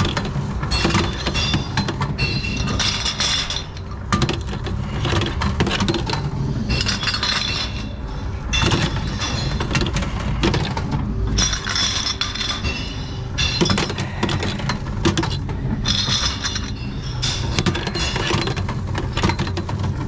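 Glass bottles clinking as they are fed one by one into a TOMRA reverse vending machine's glass intake, in repeated short bursts of ringing chinks every second or two, over a steady low rumble.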